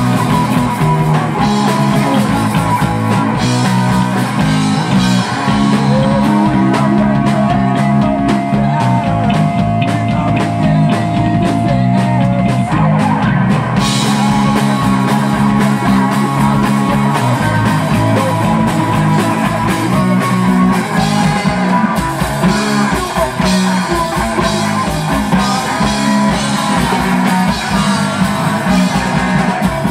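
Live rock band playing loud: bass guitar and drum kit driving a steady beat, with guitar over it. A single high note is held for a few seconds in the middle, the music gets brighter about halfway through, and a voice sings near the end.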